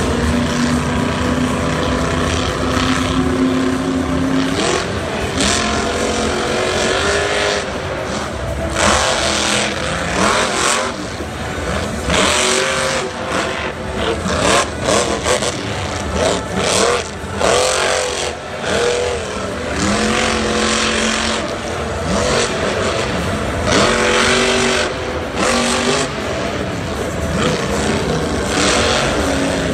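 Black Pearl monster truck's supercharged V8 engine revving hard again and again, its pitch climbing and dropping, with frequent loud bursts of throttle from about eight seconds in.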